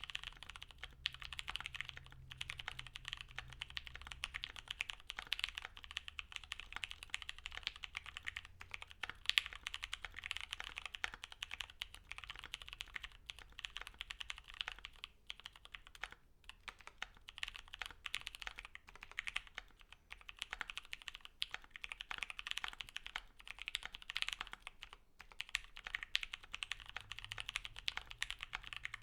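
Continuous fast typing on a custom mechanical keyboard: lubed and filmed FFFF tactile switches with 67g springs under thick PBT keycaps, in a gasket-mounted board with a polycarbonate plate and foam-dampened case. The keystrokes are rapid and steady, with brief pauses here and there.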